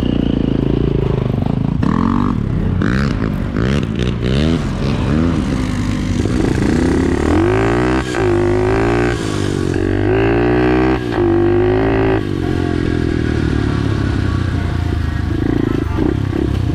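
SSR pit bike's small single-cylinder four-stroke engine being ridden hard, revving up and dropping back over and over as it goes through the gears. After about twelve seconds it settles to a steadier, lower run.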